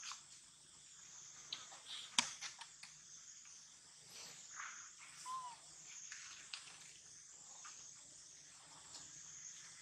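Forest ambience: a steady, high-pitched drone of insects, with scattered clicks and rustles of dry leaves and twigs, and one short chirp about five seconds in.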